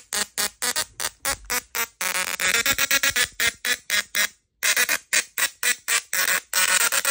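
Small musical Tesla coil sparking off the leaves of a plant on its top plate, its arcs buzzing out a quick tune in short staccato notes.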